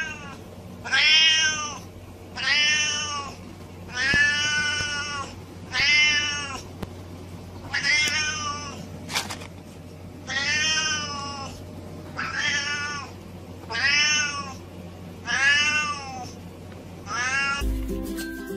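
Siamese cat meowing loudly and repeatedly, about ten long calls spaced a second or two apart, each rising and then falling in pitch.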